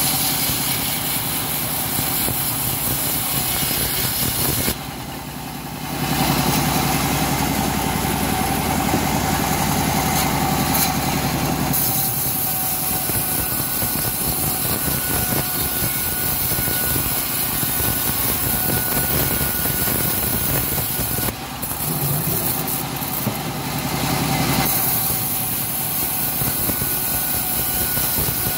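Home-built bandsaw running steadily and ripping a thick plank of old teak lengthwise, the blade cutting through the wood. The sound drops briefly about five seconds in and again near the twenty-second mark.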